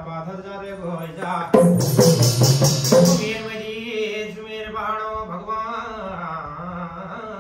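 A man singing a Kumaoni jagar devotional chant in long, held phrases. From about one and a half to three seconds in, a loud burst of drumming with bright metallic percussion joins the voice.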